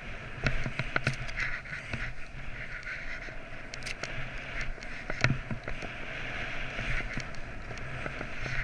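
Skis running through powder snow with wind rushing over the camera microphone, a steady hiss and rumble broken by frequent sharp clicks and knocks.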